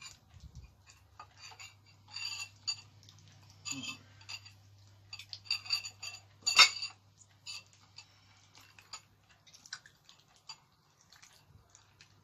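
Irregular clicks and clinks of stewed beef-foot bone and a spoon knocking against a ceramic bowl as the meat is pulled apart by hand, with one louder clink about six and a half seconds in. A low steady hum runs underneath.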